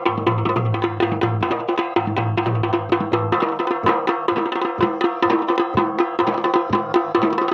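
Dhol and damau drums playing a fast, dense rhythm of Garhwali jagar music, with a steady ringing tone beneath the strokes. The deep, booming low strokes stop about three and a half seconds in, and the sharper strokes carry on.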